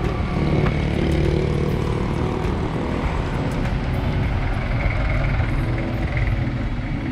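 Steady wind rumble on a handlebar-mounted camera's microphone while riding a bicycle along a city street, mixed with the sound of nearby motor traffic.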